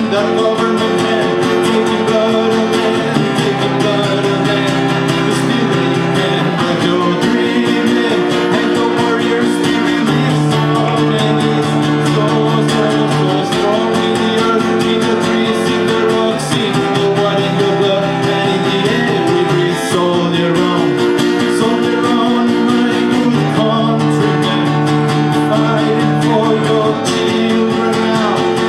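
Acoustic guitar strummed in an instrumental passage of a song, the chords changing about every three seconds.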